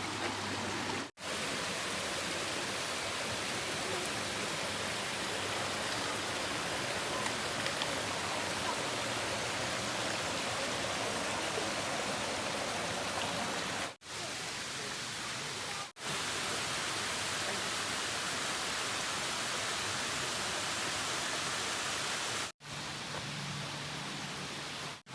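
Steady rush of falling water from a waterfall, broken by brief dropouts about a second in, twice in the middle and shortly before the end.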